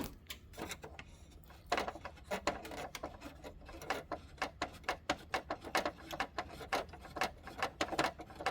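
A long screw being turned out of a Ricoh copier's finisher mounting, clicking lightly about three times a second from about two seconds in.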